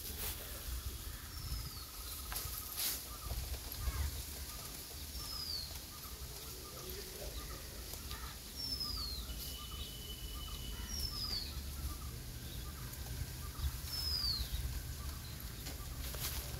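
A bird calling a short, high whistle that slides downward, five times at intervals of two to four seconds, over a steady low rumble.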